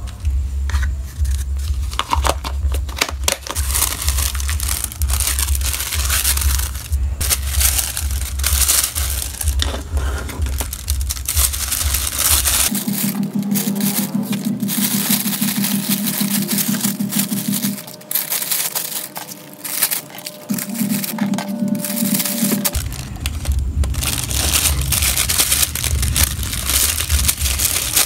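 Thin clear plastic bag crinkling and rustling under the hands as small packing items are slid into it.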